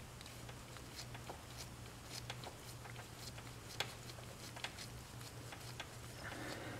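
Faint, irregular clicks and ticks of a spark plug socket and extension being turned slowly by a gloved hand, threading a new spark plug in by hand, over a steady low hum. A soft rustle near the end.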